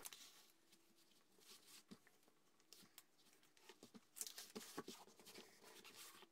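Faint rustling and light scratchy ticks of paper backing being peeled off self-adhesive gingham fabric and a hand smoothing the fabric down onto a book cover, a little busier in the second half.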